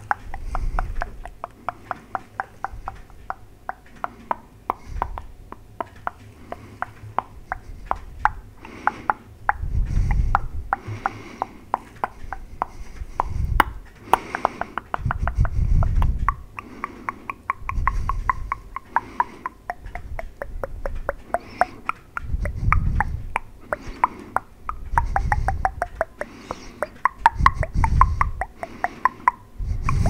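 Mouth sounds made right up against a microphone: a rapid stream of tongue clicks and lip smacks, with a breath blown onto the mic every few seconds as a low puff.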